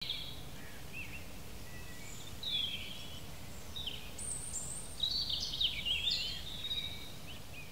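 Small birds chirping and singing, with short rising and falling whistles that grow busier about two-thirds of the way in, over a low steady outdoor rumble.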